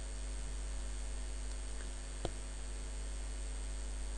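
Steady electrical mains hum picked up in the recording, with a faint high whine above it, and a single short click a little past halfway through.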